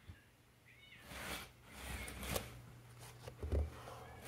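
Faint rustling and shuffling of a cardboard box on a tatami floor, in several soft bursts, as a cat moves in and around it. A brief faint cat chirp sounds about a second in.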